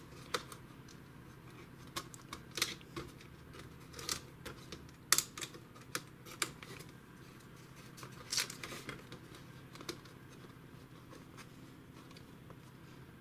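Faint, irregular light clicks and scrapes of plastic as fingers pull thin Wi-Fi antenna wires out of their routing channels in the plastic base of a Samsung R530 laptop.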